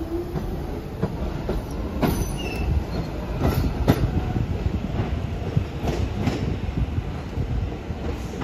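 New York City subway train running past with a steady low rumble, its wheels clacking sharply over rail joints several times and giving a brief squeal.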